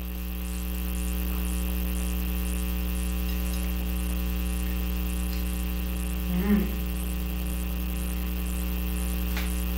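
Steady electrical mains hum with many overtones, a constant buzz. A person's voice gives a brief murmur about two-thirds of the way through.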